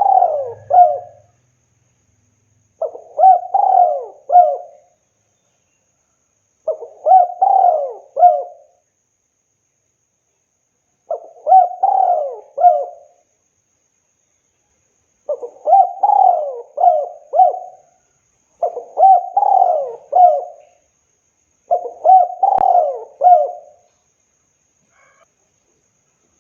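Spotted dove cooing: a phrase of several low, gliding coo notes repeated about every three to four seconds, with silence between the phrases.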